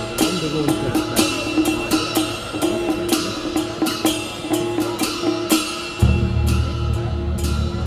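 Music with a steady drum and percussion beat over held tones; a deep bass line comes back in about six seconds in.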